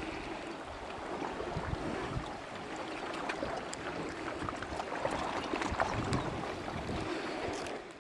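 Seashore ambience: wind on the microphone and small waves washing against rocks, with a few light clicks of handling; it fades out at the very end.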